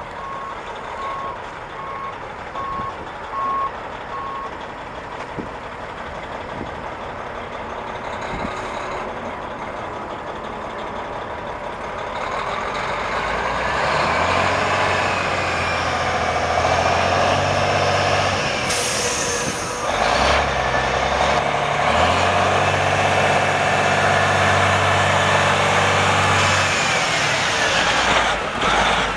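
A diesel semi tractor's reverse alarm beeping steadily as it backs up for the first few seconds. Its Detroit Diesel Series 60 12.7-litre straight-six then pulls away and comes closer, the engine revving up and dropping back with each gear shift and growing louder as it passes close, with a short hiss of air about two-thirds of the way through.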